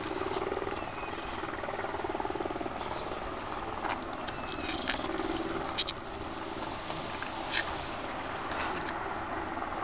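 Machete blades clacking together a few times, with the loudest as a quick double clack about six seconds in, over a steady outdoor hiss.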